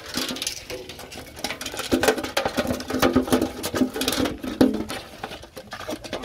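Small fish thrashing in a basin of shallow water: a rapid, irregular patter of slaps and splashes.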